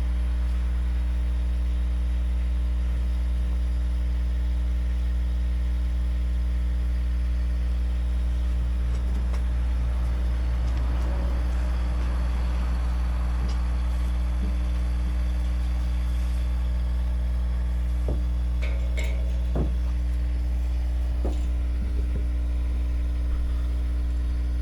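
An engine idling steadily, a constant low hum, with a few sharp knocks or clanks late in the stretch.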